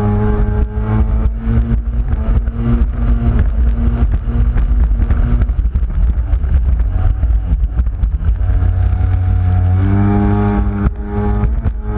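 Engine of a small fast watercraft running at speed, a steady drone over wind and rushing, splashing water. The engine note drops back about halfway through and comes up strongly again near the end.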